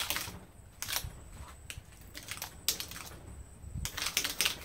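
Copper winding wire being pulled off an alternator stator held in a vise: irregular scrapes and clicks of the wire dragging free, a few at a time with a denser run near the end.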